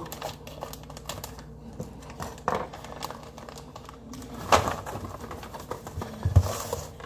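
Paper cookie-mix pouch crinkling and crackling as it is handled and opened, in many small irregular clicks. A louder crackle comes about four and a half seconds in and a low knock about a second and a half later.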